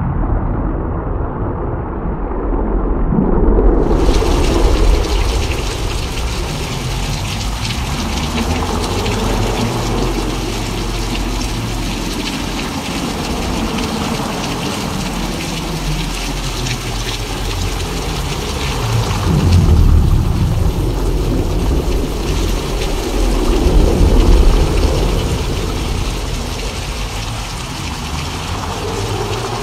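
Simulated thunderstorm: thunder rumbles swelling and fading several times over a steady rain hiss. The rain hiss comes in suddenly about four seconds in, and the thunder is loudest about twenty and twenty-four seconds in.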